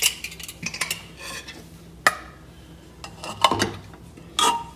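A ladle knocking and scraping against the inside of a pressure cooker as it stirs through boiled chickpeas: a few separate clinks and clatters.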